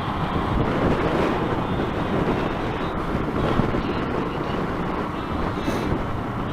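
Strong wind rushing and buffeting over a helmet-mounted microphone while riding, over the running engine of a Yamaha YZF-R125, a single-cylinder 125cc four-stroke motorcycle. The noise is steady and dense, without a clear break.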